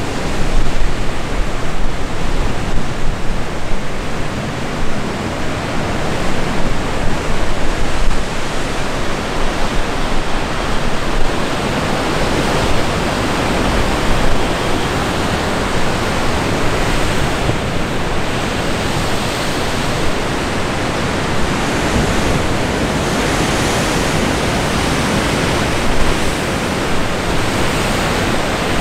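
Wind gusting on the microphone over the steady rush of ocean waves breaking on the rocks below the cliffs. The gusts are strongest in the first several seconds, then the sound settles into an even roar.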